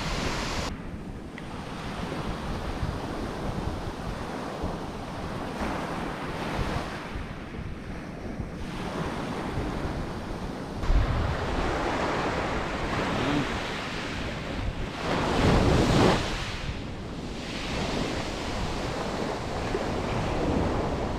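Sea waves washing in on a pebble beach, with wind buffeting the microphone. The surf swells louder about halfway through and again a few seconds later.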